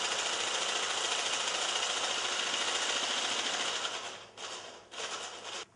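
Electric hand mixer with a wire whisk beating eggs in a bowl: a steady motor whir that drops off about four seconds in, followed by two short bursts before it stops near the end.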